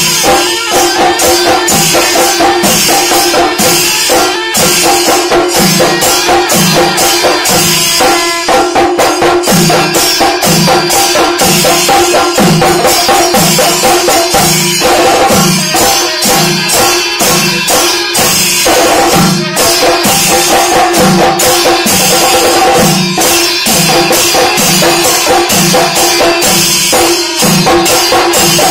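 Panchari melam on a large ensemble of Kerala chenda drums: many sticks beating dense, rapid strokes over a slow, even bass beat about every three-quarters of a second. Metallic jingling cymbals and a steady held tone run underneath.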